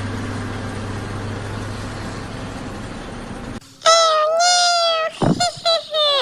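A steady low hum with hiss, then about four seconds in a high-pitched, drawn-out crying voice, followed by several shorter cries.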